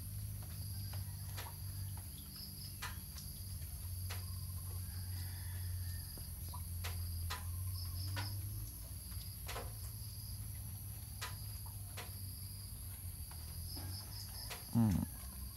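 Steady high-pitched insect trilling, with short chirping trills recurring every few seconds, over a low steady hum and scattered faint clicks.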